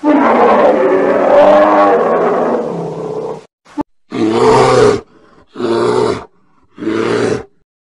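Bear roaring: one long roar lasting about three and a half seconds, then three shorter roars in quick succession, with a brief click between them.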